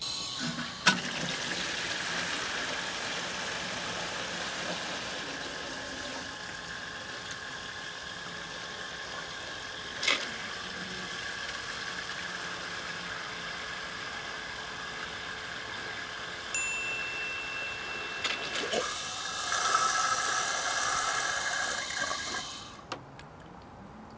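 A 3D-printed water pump with a green impeller, driven by a 775 DC motor, running steadily with a whine while the water it pumps gushes from a hose into a plastic jug. The sound grows louder about 19 seconds in, then cuts off about a second before the end as the pump is stopped.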